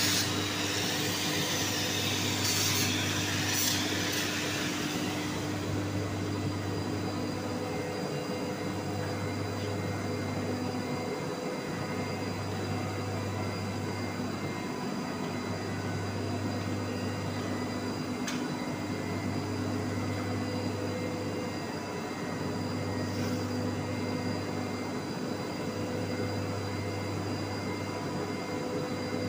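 TIG welding arc hissing for the first few seconds, then cutting out. A steady machine hum with a low, pulsing drone runs on underneath.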